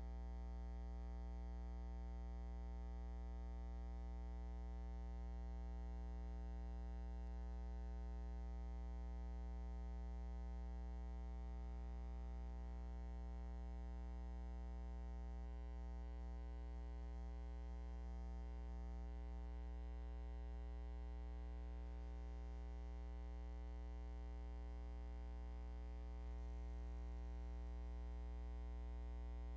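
Steady electrical hum with a buzzy edge: one low tone with many evenly spaced overtones, unchanging and with no other sound over it.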